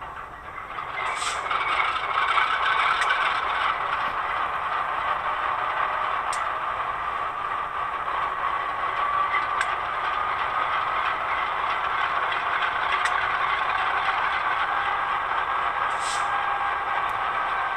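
The onboard sound decoder of a Rapido N scale CN Dash 8-40CM model locomotive plays its diesel engine startup sequence through the model's tiny speaker. The engine sound builds up over the first couple of seconds, then settles into a steady idle that is thin, with little bass.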